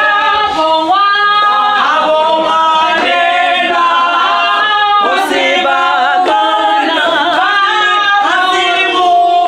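A group of women singing together in chorus, unaccompanied, holding each note for about a second before moving to the next.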